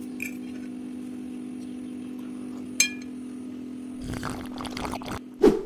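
A metal spoon clinking against a ceramic dish, once faintly and then once sharply with a short ring about the middle, over a steady low hum. Then sipping from a ceramic mug, ending in a louder knock.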